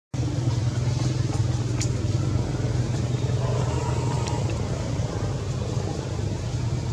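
A motor engine running steadily with a low hum, with a couple of faint ticks over it.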